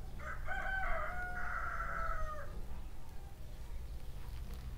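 Rooster crowing once, a single crow lasting about two seconds.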